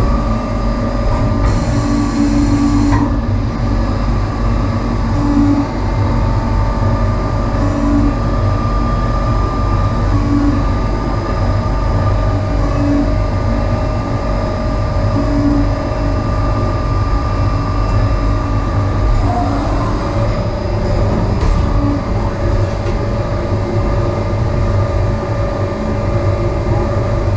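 Gildemeister CTX 420 linear CNC lathe running, a steady machine hum with constant whining tones and a short regular pulse about every two and a half seconds. A brief hiss comes about two seconds in.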